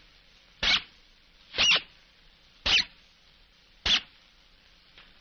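Squeaky shoes squeaking with each step: five short, high chirping squeaks about a second apart, the last one faint.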